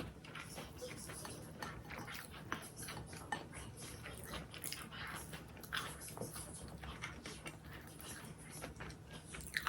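Close-up eating sounds: biting and chewing food with frequent short crunchy clicks and crackles.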